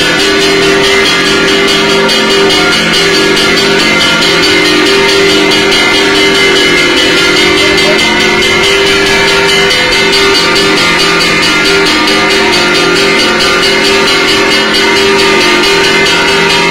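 Loud, unbroken ceremonial music dominated by ringing metallic percussion, with many held tones and no pause.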